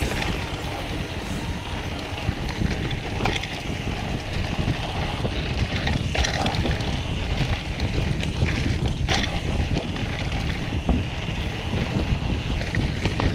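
Mountain bike riding downhill on a dirt forest trail: steady wind buffeting the camera microphone over the rumble of the tyres on the ground, with a few sharp clacks as the bike rattles over bumps.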